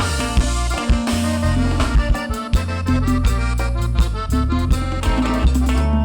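Cumbia band playing an instrumental break: a melody over a strong bass line and a steady percussion beat.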